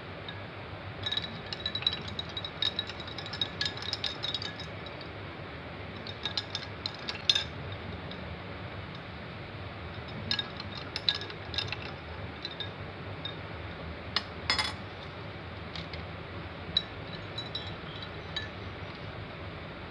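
Metal spoon stirring in glass tumblers of juice, clinking against the glass in irregular runs of light taps, each with a short ring, over a steady low hum.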